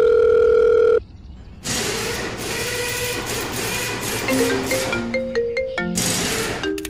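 A steady electronic beep that stops about a second in, then a hiss joined from about four seconds in by a melody of short notes on a marimba-like mallet instrument.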